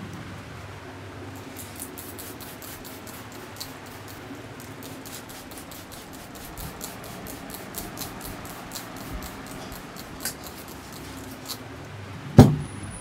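A barber's hands at work in a massage: a steady run of quick, light clicks, about four a second, stops a little before the end. Then comes one loud slap-like thump.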